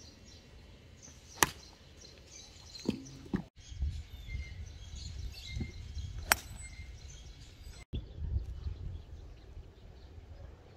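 Two golf tee shots: the sharp crack of a club face striking the ball, about a second and a half in and again about five seconds later.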